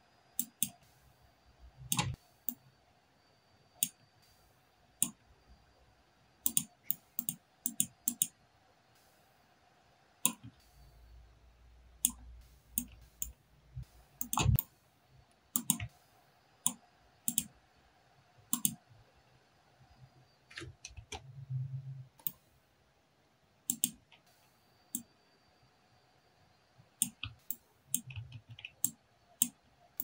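Computer mouse buttons and laptop keyboard keys clicking at an irregular pace, with a quicker run of clicks near the end.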